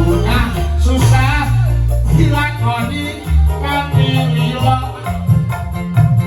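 Live band music with a heavy bass line and a wavering, vibrato-laden melody line above it.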